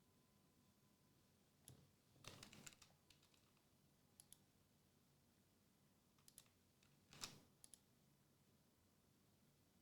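Faint scattered clicks and taps. Small clusters come about two seconds in and about seven seconds in.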